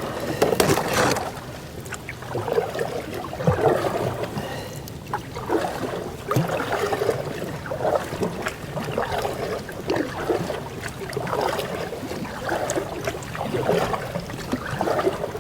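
Canoe being paddled through a river choked with loose, breaking late-winter ice: a paddle stroke in the water about once a second, with ice clicking and scraping around the hull.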